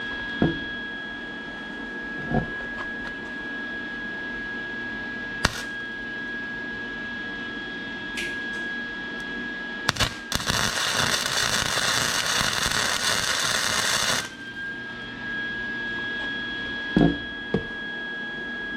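Arc welder tack-welding a steel rod for a gear-shifter lever: a couple of sharp clicks, then, about ten seconds in, roughly four seconds of dense crackling arc that stops abruptly. A steady high-pitched whine runs underneath.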